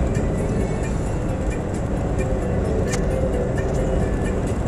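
Steady road and engine noise inside a moving car, with a brief click about three seconds in.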